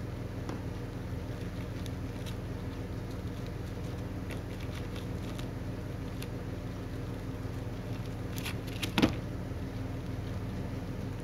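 Faint scattered ticks and crunches of a hamster gnawing kernels off a corn cob, over a steady low hum with several layered tones. A quick cluster of clicks comes about eight seconds in and ends in one louder knock about nine seconds in.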